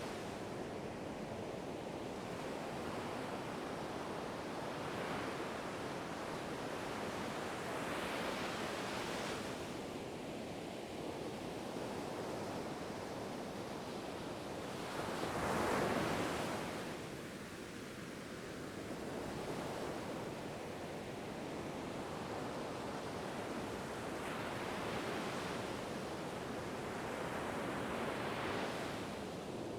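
Ocean waves breaking and washing on a shore: a steady rush of surf with gentle swells every few seconds, the biggest wave breaking about halfway through.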